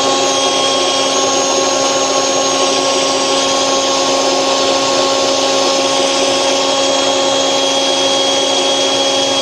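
Blower running steadily at full speed, a loud, even whine over a rush of air, its outlet fed through a length of garden hose to blow sand away.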